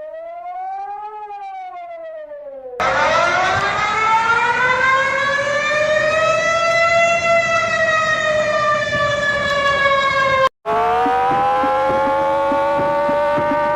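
Warning sirens in three clips cut together. The first is a wail that rises and falls within about two seconds. A louder recording follows with a slow rise and fall lasting about eight seconds. After a brief cut, a third siren rises and holds steady with a regular ticking beneath it.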